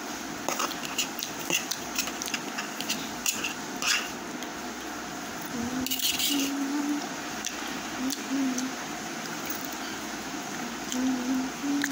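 A steel spoon clicking and scraping against a steel plate of instant noodles, with chewing and slurping in between. The clicks come thickest in the first four seconds, and there is a short slurp-like burst about six seconds in.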